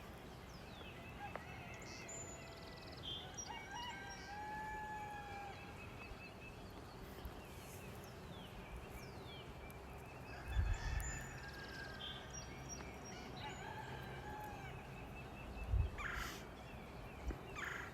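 Faint outdoor birdsong: several birds singing and calling with short whistled notes and glides, along with longer arched calls from domestic fowl, likely the rooster heard earlier. Two low thumps come about ten and sixteen seconds in.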